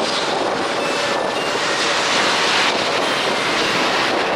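Steady jet aircraft noise on an airport apron: a continuous even rush with a faint whine, holding the same level throughout.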